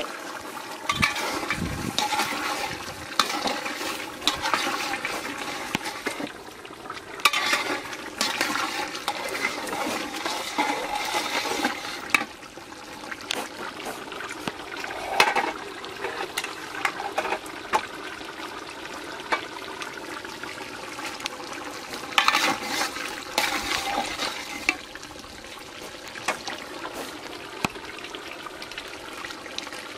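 Water sloshing and trickling, with scattered small clicks and clatter.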